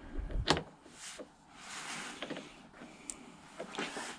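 Steel tool holder being set onto the dovetail of a Dickson-style quick change tool post, metal on metal: a sharp clunk about half a second in, a few lighter clicks, and a soft sliding scrape near the middle.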